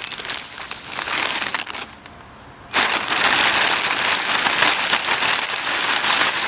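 Crinkling, rustling handling noise as clumps of shaved dog hair are dumped into a compost bin. It eases off briefly about two seconds in, then comes back louder and denser.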